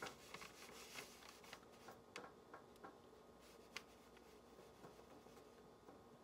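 Near silence with faint, irregular light clicks and taps from a small brush and chocolate candies being handled on parchment paper.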